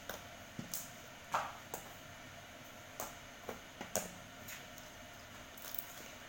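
Fluffy slime being squished and pressed by hand, giving irregular soft pops and clicks, about a dozen over the few seconds.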